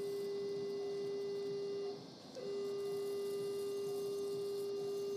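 Electrosurgical generator's activation tone: one steady mid-pitched tone, sounding while the electrocautery pencil is energised. It breaks off about two seconds in and starts again a moment later as the pencil is keyed a second time.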